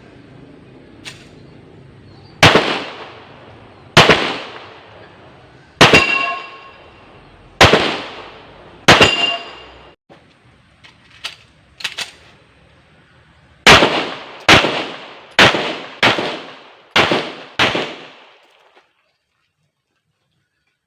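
9 mm pistol shots from a Rock Island Armory Tac Ultra FS HC: five single shots about one and a half to two seconds apart, then, after a pause with a couple of faint clicks, a quicker string of six shots. Each shot has a trailing echo.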